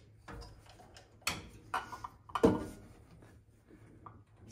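Compressed air puffing out of a small-block Chevy 283's number-one spark plug hole past a fingertip held over it, as the engine is turned by hand toward top dead center: the sign that the cylinder is on its compression stroke. A few short puffs, the loudest about two and a half seconds in, with faint clicks between.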